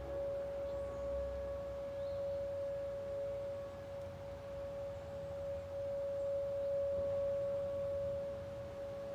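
Distant outdoor warning siren sounding its monthly test, holding one steady, unbroken tone whose loudness swells and eases slowly.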